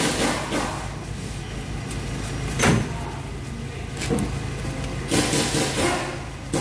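Handling noises from working under the car: a few short knocks and rustling scrapes, the loudest about two and a half seconds in and a cluster near the end, over a steady low hum.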